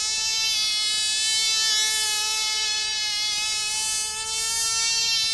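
Tiny two-stroke model-aeroplane engine running flat out: a steady, high-pitched buzz.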